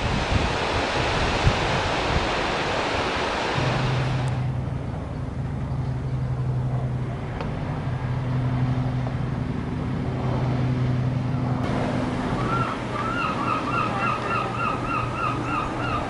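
Small waves breaking on a sandy beach with wind noise, cut off suddenly about four seconds in. After that comes a steady low hum, then near the end a bird call repeated evenly about three times a second.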